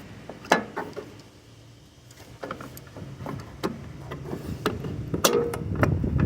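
Sharp, scattered metallic clicks and knocks, about half a dozen, from hand work fitting a van's front fender and its fasteners into place.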